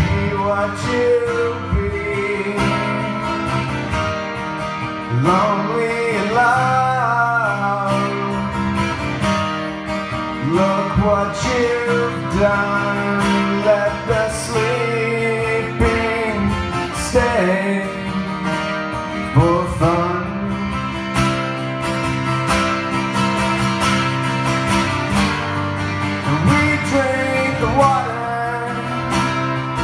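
Two acoustic guitars playing live, steady strummed chords under a melody line that glides up and down.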